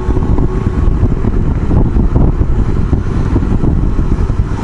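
Wind rushing over a helmet-mounted microphone while riding, with the Yamaha XJ600 Diversion's air-cooled inline-four running under it as a steady low rumble.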